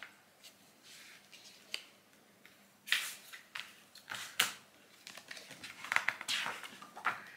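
Handling noises of a small cardboard product box and a paper booklet: scattered sharp clicks and taps with short rustles. The loudest come about three and four and a half seconds in, with a quick cluster around six seconds.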